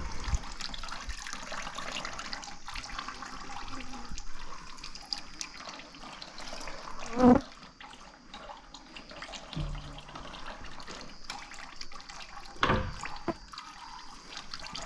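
Engine oil from a Rotax aircraft engine trickling into a bucket during an oil change, a steady liquid trickle, with flies buzzing close by briefly, most loudly about seven seconds in and again near twelve seconds.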